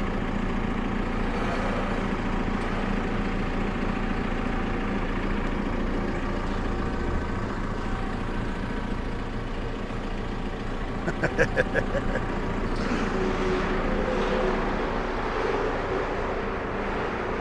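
Diesel engine of a heavy machine running steadily, with a quick run of about six rattling knocks about eleven seconds in.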